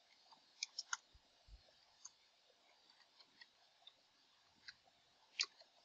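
Faint, scattered sharp clicks over quiet hiss: three close together a little over half a second in, a few smaller ones, and a sharper one near the end.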